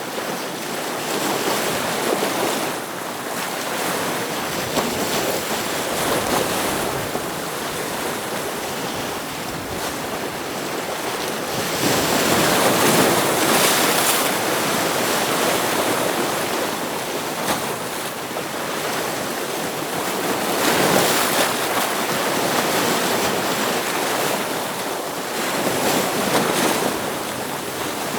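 Ocean waves breaking on rocks, a continuous wash of surf that swells louder about 12 seconds in and again around 21 seconds.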